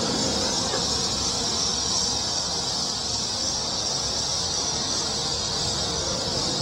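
Steady, even chorus of insects singing in the summer grass and weeds, high-pitched and unbroken, over a low steady rumble.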